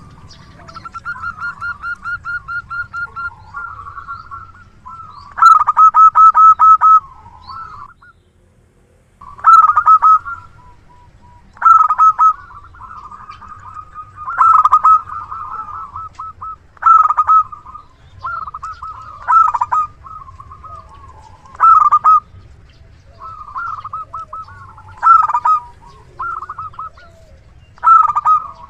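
Zebra dove (perkutut) cooing over and over. Each phrase is a quick run of clipped notes ending in a few loud ringing coos, and the phrases come about every two to three seconds, with one short pause about eight seconds in.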